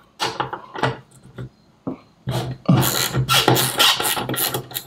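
Socket ratchet clicking as nuts are backed off a blower motor's housing: a few separate clicks in the first second, then a fast, dense run of ratchet clicks over the last two and a half seconds, with a low steady hum beneath it.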